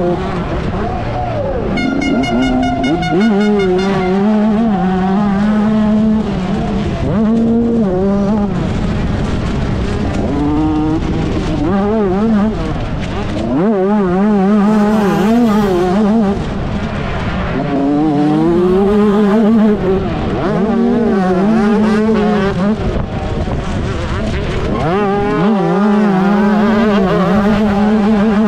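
A 125cc two-stroke motocross bike engine revving hard, its pitch climbing and dropping over and over as the throttle is opened and closed. A second, higher engine note is heard briefly over it about two seconds in.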